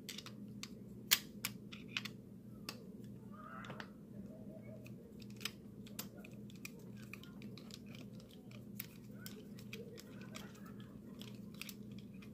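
Irregular small metallic clicks and taps of a screwdriver working inside an opened padlock as it is taken apart, the loudest about a second in, over a steady low hum.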